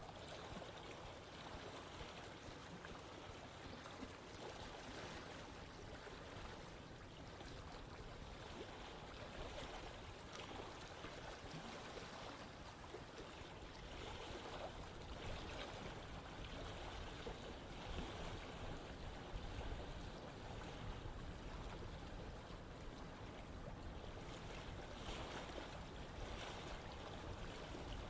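Running water of a stream or river, a steady rushing and burbling that swells a little now and then.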